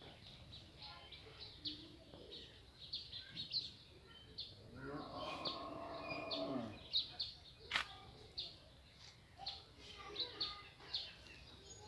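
Sparrows chirping in quick, short notes. Midway a single drawn-out call of about two seconds stands out, and a sharp click follows about a second later.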